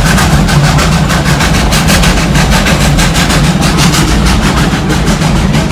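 Steady, loud ride noise from an open railroad car behind a steam locomotive: a rumble with a quick, even clatter running through it.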